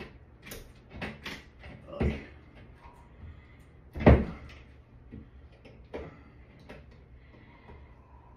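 Paint-can opener prying and knocking against a stuck shower valve cartridge: a series of scrapes and clunks, loudest about two seconds in and again about four seconds in.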